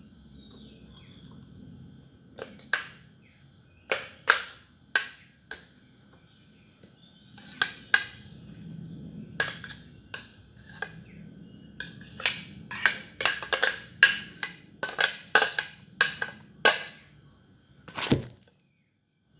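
Dishware and utensils clinking and knocking: about twenty sharp, irregular hits, some with a short ring, coming faster in the second half.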